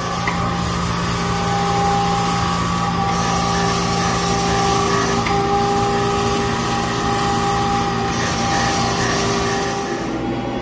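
Brown & Sharpe surface grinder running with coolant spraying onto the magnetic chuck: a steady whine under a hiss that swells and eases every two to three seconds.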